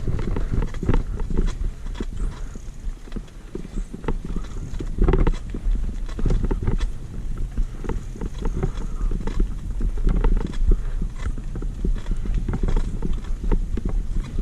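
Mountain bike rattling and clattering over rough, bumpy singletrack: irregular knocks and clanks from the bike and its tyres over roots and ruts, over a steady low rumble.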